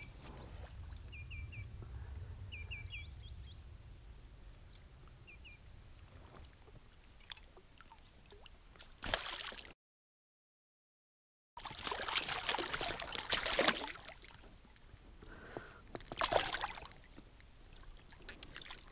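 Water splashing and sloshing in several bursts as a pike thrashes at the surface, the loudest from about three seconds after the middle. Small birds chirp in short groups of two or three near the start.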